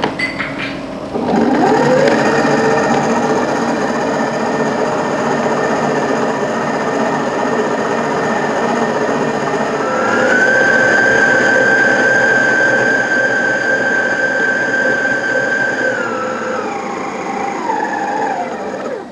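Mito Pico electric stand mixer switched on about a second in, its motor whining up to speed and running steadily as the flat beater works flour into stiff cookie dough. About ten seconds in the speed is turned up and the whine rises in pitch. Near the end the mixer is turned down and off, and the whine falls away and stops.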